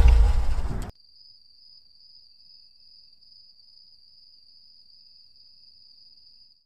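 A car engine idling cuts off abruptly about a second in. It leaves a faint, steady, high-pitched cricket trill.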